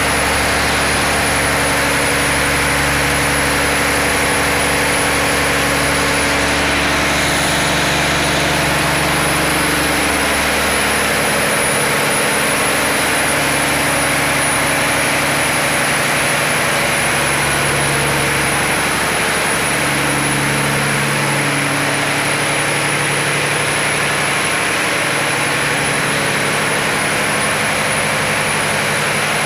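A fishing boat's inboard diesel engine running steadily, heard close up inside its engine room as a loud, constant mechanical din.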